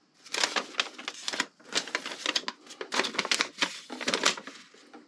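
Bursts of rapid, irregular clicking and rattling, like small hard parts being handled: an air horn and its mounting bracket and leads being turned over in the hands on a workbench. The clatter stops and starts a few times and dies down near the end.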